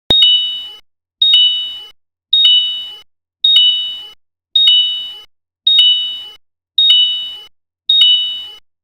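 Electronic two-note warning chime: a high ding followed at once by a slightly lower one, repeating a little more than once a second, each pair fading away before the next.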